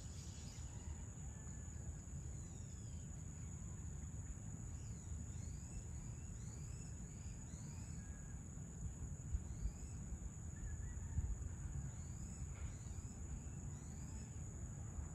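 Evening outdoor ambience: a steady high-pitched insect trill, with a bird giving a run of short, repeated curved chirps from about five seconds in. A low rumble sits underneath.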